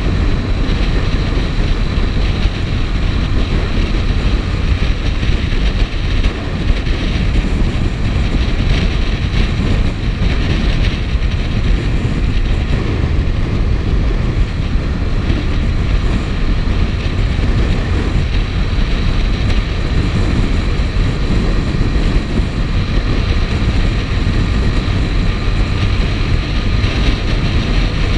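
Steady wind buffeting over the microphone of a moving motorcycle, with the motorcycle's engine running underneath at a constant cruising speed.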